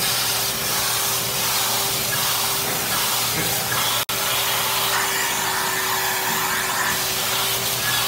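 Commercial stainless-steel drum wet-and-dry vacuum cleaner running steadily: a constant rush of air with a steady motor hum, its wand drawn along a hard floor. The sound drops out for an instant about four seconds in.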